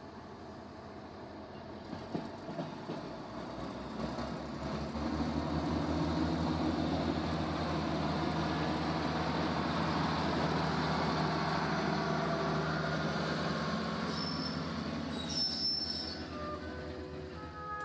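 Diesel railcar "De Kameel" under power as it pulls away and passes close by, its engine running with a steady low pulsing note over wheel and track noise. It grows louder for the first few seconds, holds while the railcar goes by, and fades as it draws away.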